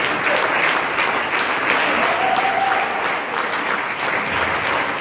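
Audience applauding steadily, a dense patter of many hands clapping after the dance music has stopped.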